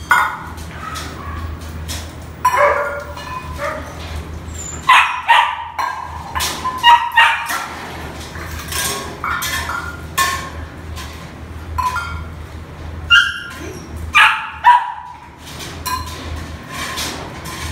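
Dogs barking and yipping in short, sharp bursts, over and over.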